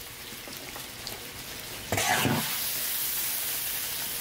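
Spicy pickled-chili and pepper topping spooned over a braised beef head: light scraping and dripping at first, then a wet splat about two seconds in followed by a steady hiss.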